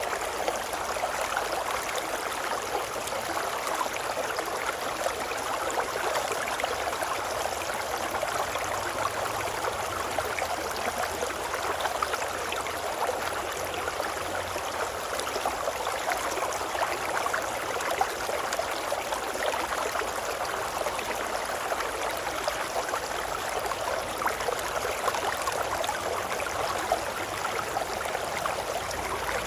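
River water babbling and running in a steady, even rush with fine flickering detail and no let-up.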